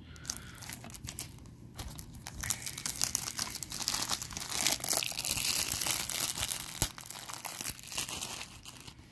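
Clear plastic shrink wrap being torn and peeled off a DVD case, crinkling and crackling, loudest in the middle and dying down near the end, with one sharp click about seven seconds in.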